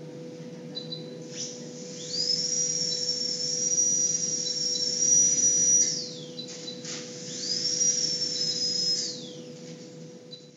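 High-speed dental drill run twice. It spins up to a steady high-pitched whine with a hiss of air, holds for about four seconds and winds down. Then it spins up again for about two seconds and winds down.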